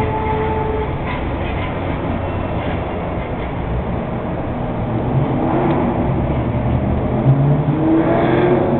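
Steady, loud mechanical rumble, with a few faint clicks and wavering tones over it.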